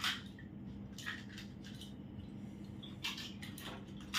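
Crisp, hollow fuchka (pani puri) shells being cracked open with the fingertips: scattered light crackles and clicks.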